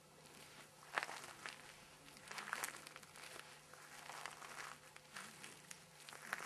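Irregular crunching and rustling in dry grass and leaves, beginning with a sharp crack about a second in, then scattered uneven crunches, like footsteps or movement through dry vegetation.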